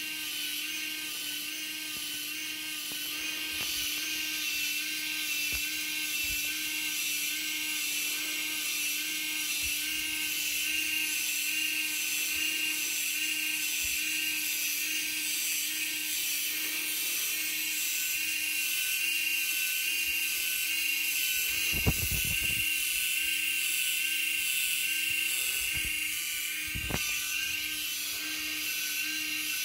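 Small electric motors of a Hachette Titanic model's engine electronics running steadily, giving a constant hum with a higher, slightly wavering whine. A few knocks come about two-thirds of the way through, and one more comes a little later.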